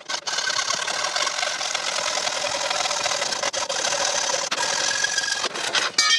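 Hacksaw cutting through a metal curtain rail: a steady rasp of quick back-and-forth strokes, with only brief pauses.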